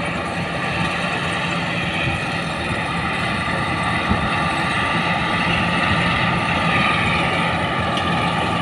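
Deutz-Fahr combine harvester running as it harvests: a steady engine drone under a constant high whine from the threshing machinery. It slowly grows louder as the machine comes closer.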